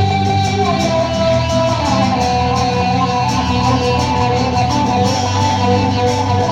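Live acoustic band playing an instrumental passage without vocals, guitars to the fore, with held melody notes that slide between pitches over the strummed accompaniment.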